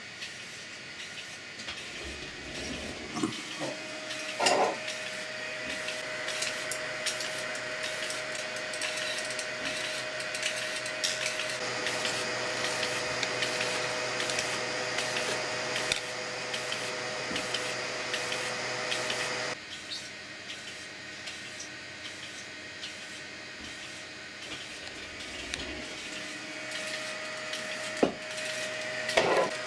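3D printer running a print in an extreme filament-retraction test: a steady whine of stepper motors over fan noise, with a few sharp clicks. About 20 seconds in the sound abruptly drops and changes pitch.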